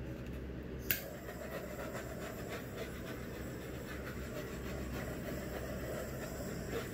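Steady low room hum, like a fan running, with one sharp click about a second in and faint light taps after it.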